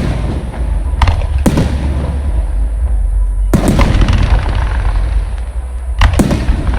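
Fireworks going off: five sharp bangs, in two close pairs and one single, over a continuous low rumble.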